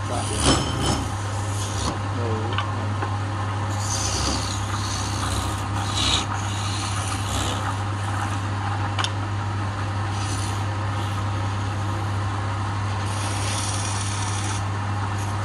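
Wood lathe running with a steady low hum while a hand-held gouge cuts into the spinning wood, peeling off shavings with a scraping, rasping sound that comes and goes in spells.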